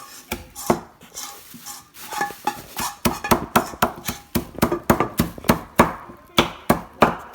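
Repeated sharp knocks of cookies being tapped into fine crumbs, sparse at first, then about three to four a second from about three seconds in.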